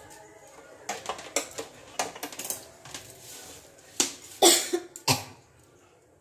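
Kitchen utensils clattering and knocking as they are handled on the counter: a string of sharp knocks, the loudest about four and a half seconds in.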